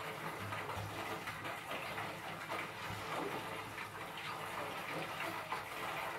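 Soft, irregular brushing and patting of floury hands spreading starch over a sheet of dough on a countertop, over a steady hiss and a low hum.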